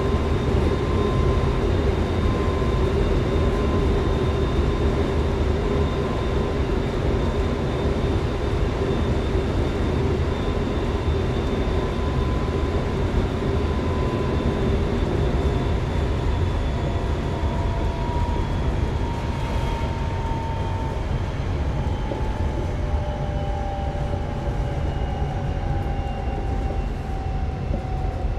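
Semboku Rapid Railway 5000 series electric train running between stations, heard inside the passenger car: wheel and track rumble with the thin whine of its Hitachi GTO-VVVF inverter traction motors. In the second half, several whine tones slowly fall in pitch as the train slows.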